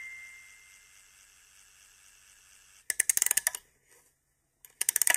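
A bell-like mallet note fades out over the first two seconds, then two bursts of fast, rapid clicking, the first about three seconds in and lasting under a second, the second starting near the end.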